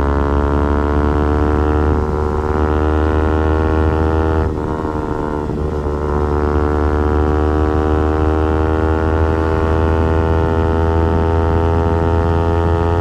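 Yamaha R15 V4's 155 cc single-cylinder engine and exhaust under full throttle, the revs climbing steadily through the gear. About four and a half seconds in the pitch briefly drops at a gear change, then climbs again.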